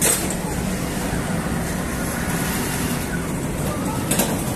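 Flatbread bakery machinery running steadily: dough-sheeting rollers, a conveyor and a rotating oven. There is a brief sharp clack at the start and another near the end.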